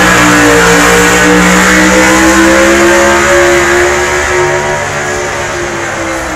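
Hot-diesel-class pulling truck's diesel engine running flat out under load as it drags the sled, loud and steady, its pitch creeping up; it eases off and fades over the last few seconds.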